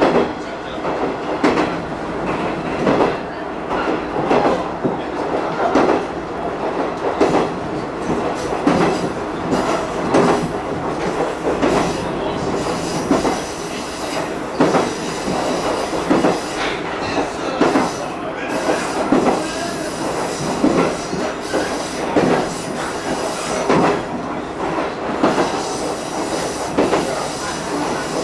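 Diesel railcar running along jointed single track, heard from inside beside the driving cab: wheels clack over the rail joints about every one and a half seconds over a steady running rumble.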